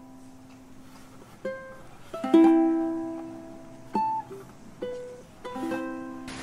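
Background music: a soft tune of single plucked-string notes that ring and fade one after another. The loudest note comes about two and a half seconds in.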